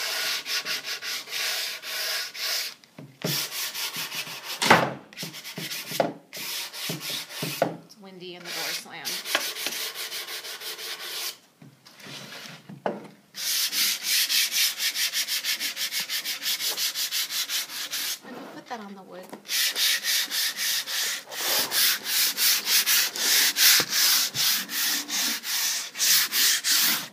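Fine 220-grit sandpaper rubbed by hand over the painted and stained wood of a drawer front, with the grain, wearing back the finish to distress it. Quick back-and-forth strokes, about four a second, come in several runs with short pauses between them.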